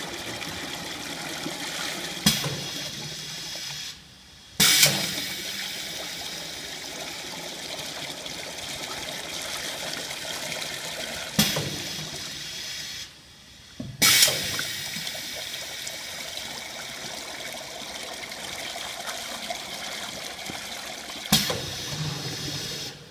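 Water from the two nozzles of a pneumatic dual-head piston filler pouring steadily into two plastic buckets. Sharp clacks come from the machine about every nine seconds, and twice the pouring stops for under a second, ending with a clack.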